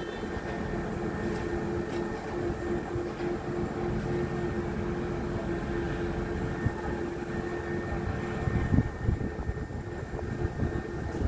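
Heavy construction machinery running steadily: a low engine drone with a constant whine on top, and a few irregular low bumps near the end.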